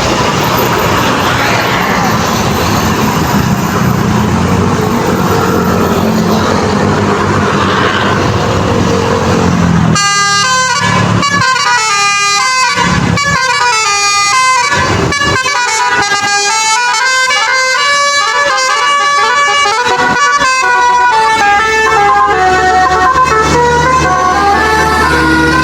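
Bus basuri horn playing a melody, one held note after another at changing pitches, clear and loud from about ten seconds in. Before that the horn is buried in a loud, noisy wash of sound.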